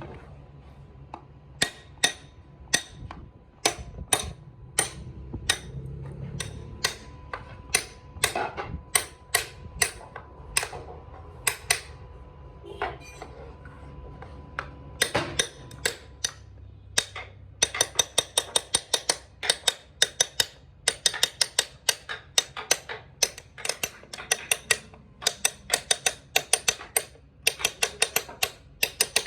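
Sharp taps of a hand tool striking wood, irregular and spaced out at first. About halfway through they become a quick, even series of about three or four taps a second, as in tapping pieces home or driving small nails.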